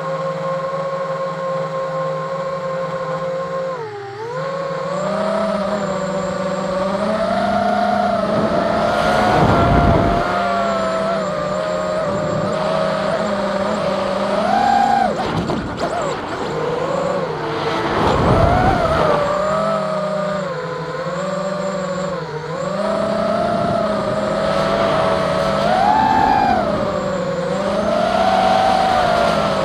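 Hexacopter's electric motors and propellers whining in flight, picked up by the camera mounted on the craft. The pitch holds steady for the first few seconds, then keeps rising and falling as the throttle changes. Wind rushes over the microphone twice, about a third and two thirds of the way through.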